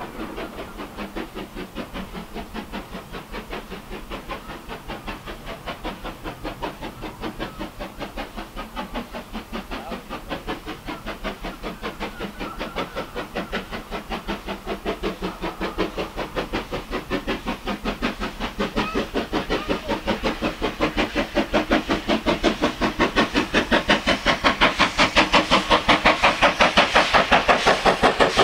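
USATC S160 2-8-0 steam locomotive No. 6046 approaching, its exhaust beating in a fast, even rhythm that grows steadily louder.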